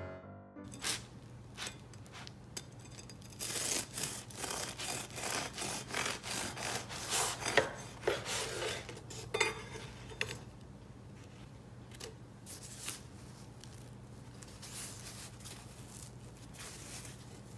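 A knife sawing through a crusty loaf of homemade bread on a wooden cutting board, in a run of rough rasping strokes that stop about ten seconds in. Quieter scuffs of the bread being handled follow, over a steady low hum.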